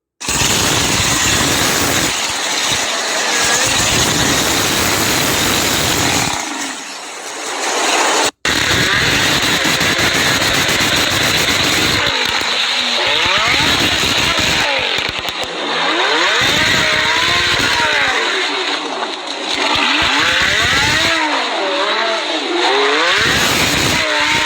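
A car engine revving up and down repeatedly in the second half, over a loud, steady rushing noise of driving. The sound breaks off for an instant twice, near the start and about a third of the way in.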